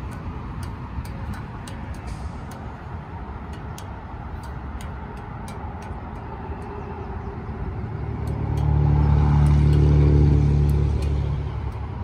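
A motor vehicle's engine hum swells up about eight seconds in, is loudest a second or two later, then fades away, over a low steady rumble.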